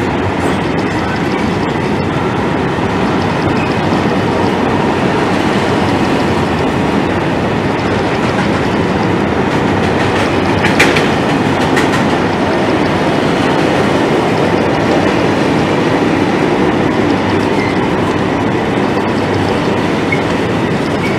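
Freight train passing close by: its wagons roll past with a steady rumble and the wheels click over the rail joints, with one sharper clack about eleven seconds in.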